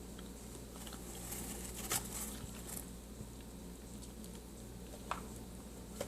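Soft rustling with a few light clicks, the sharpest about two seconds and five seconds in, as a package of cornstarch chunks is opened and handled.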